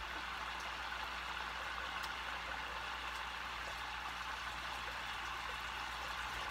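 Steady sizzling of food frying in a skillet, with a few faint pops.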